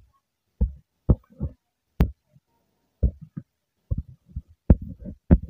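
Irregular short low thumps, with a couple of sharp clicks among them, coming faster near the end: taps on the touchscreen of the device running the recording, as the ink tools are picked and the working is written on the slide.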